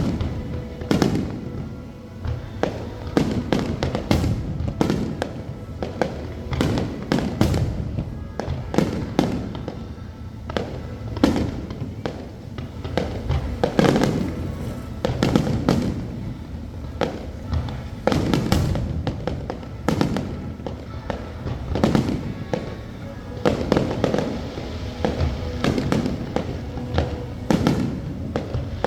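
Fireworks show: aerial fireworks bursting in a long irregular run of bangs, clustered in volleys, with music playing underneath.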